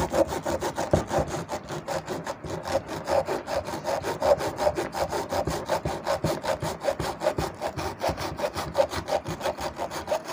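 Hand-held hacksaw blade sawing through the old copper coil windings in a ceiling fan's stator slots, in quick, even back-and-forth strokes of several a second, stopping near the end.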